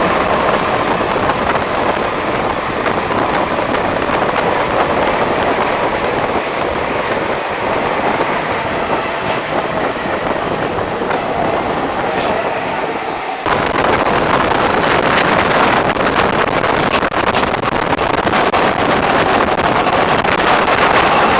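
Siemens-AEG Athens Metro Line 1 electric train running on the rails, a steady rumble with a faint whine through the first half; about thirteen seconds in the noise suddenly gets louder and rougher.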